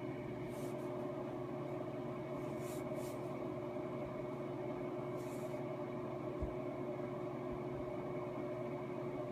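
Steady machine hum made of several fixed tones, like a fan or appliance running, with a few brief soft hisses.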